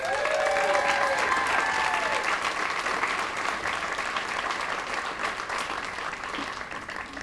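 Crowd applauding, with a few cheers and whoops in the first second or so. The clapping slowly dies down toward the end.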